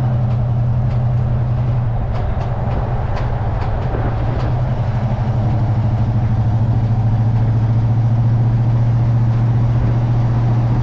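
Camper van driving along a road: a steady, loud engine drone with road and tyre noise.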